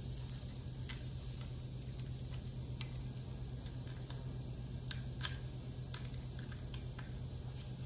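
Scattered small metal clicks and taps as a small hand tool turns a screw in a metal clamp, irregularly spaced and loudest about five seconds in, over a steady low hum.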